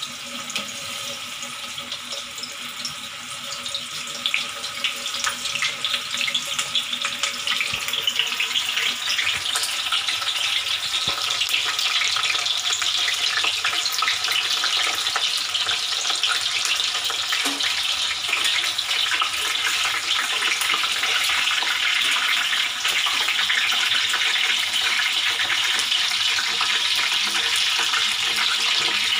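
Cornflour-coated soya chunks deep-frying in hot oil in a kadhai, the oil sizzling and crackling densely. It grows louder over the first several seconds, then holds steady.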